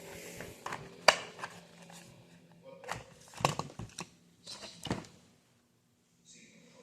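Scattered clicks, knocks and rustles of items being handled, with a sharp click about a second in and a cluster of knocks between three and five seconds in.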